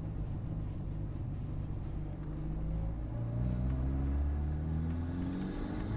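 A vehicle engine running, its pitch rising steadily through the second half as it speeds up.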